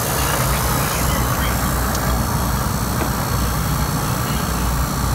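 A 3 CFM vacuum pump running steadily with a low hum, evacuating an air-conditioning system through its hoses with the valves fully open.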